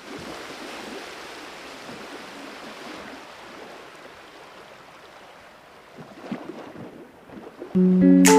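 A steady hiss, fading slightly over time, with a few faint clinks of a metal fork against a ceramic plate a little past the middle. Guitar music comes in loudly near the end.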